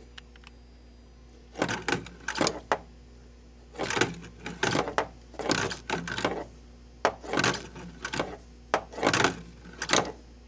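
A pinball playfield switch and the hanging target that trips it, worked by hand to test a freshly adjusted switch blade: about a dozen short mechanical clacks in irregular bunches, starting about a second and a half in.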